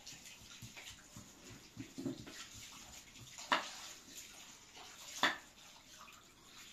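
Hands swishing and rubbing rice in a bowl of water, a low wet sloshing. Two sharp knocks stand out, one about halfway and one near the end, from a knife cutting through carrots onto a wooden board.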